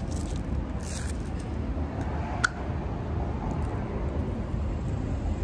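Steady low rumble of outdoor background noise, with one sharp click about two and a half seconds in.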